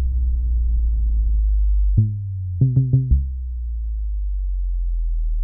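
Trap-style sub bass patch played in the Massive software synthesizer: a deep sustained sub note with a layer of noise that stops about a second and a half in, then a boom hit with a falling pitch, a quick run of four hits, and a long, steady low sub tone.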